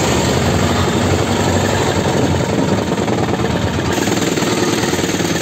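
Motorboat engine running steadily, heard from on board the boat.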